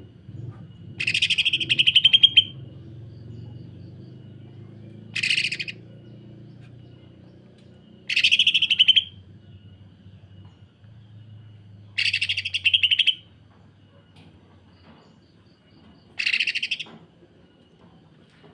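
Greater green leafbird (cucak ijo) singing its harsh, rapid-fire rattle in five bursts of about a second each, roughly every three to four seconds. This is the dense rough call that bird-keepers call the 'sewing machine' call.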